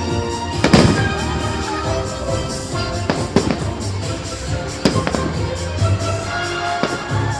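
Fireworks bursting over the show's music: several sharp bangs, the loudest under a second in, with the music's sustained notes running beneath.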